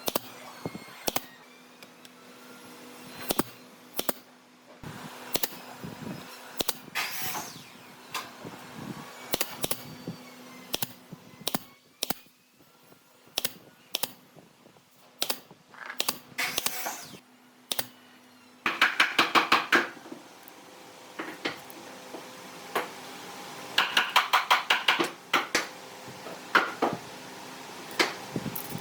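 Scattered sharp clicks and knocks of hand tools on wood, with two runs of rapid tapping, about ten taps a second, past the middle and again a few seconds later.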